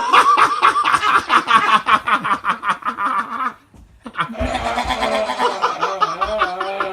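A man's voice imitating a goat's bleat: a fast-quavering 'baa' lasting a few seconds, then after a short break a second, steadier bleat. It sounds more like a lamb than a goat.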